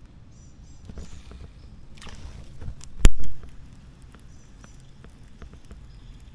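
Handling noise from a baitcasting rod and reel in a plastic sit-on-top fishing kayak: faint ticks and rustles, with one loud, sharp knock about three seconds in.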